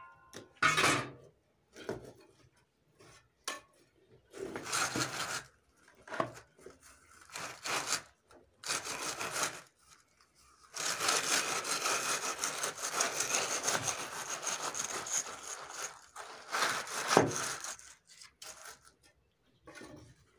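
Wooden screed board being sawed back and forth across wet concrete, a rough scraping in short separate strokes, then one long unbroken stretch of several seconds in the middle. This is the floor slab being struck off level.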